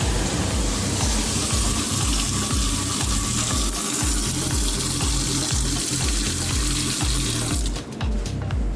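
Water running steadily from a kitchen sink tap, shut off near the end, over background music with a steady bass beat.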